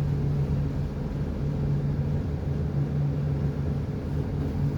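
Ship's engine running steadily: a continuous low drone with a strong, slightly pulsing hum.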